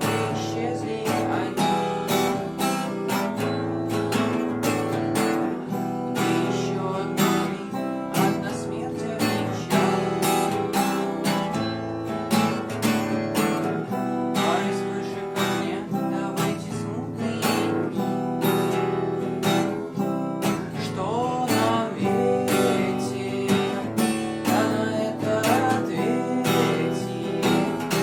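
Acoustic guitar played with steadily strummed chords, a continuous song accompaniment without pauses.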